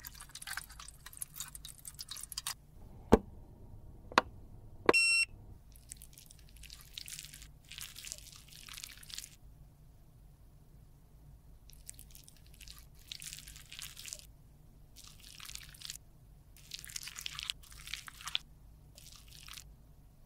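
Alcohol splashing as it is poured over metal tools in a steel tray, then a few sharp clicks and a short ringing tone about five seconds in. After that, a razor blade scrapes and slices through soft lipstick in several separate strokes of a second or two each, with pauses between.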